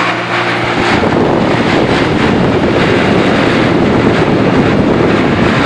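Pentair UltraTemp pool heat pump running with a steady hum, overtaken about a second in by a loud, awful rushing noise from low in the unit. It is an intermittent fault noise whose cause the owner cannot identify.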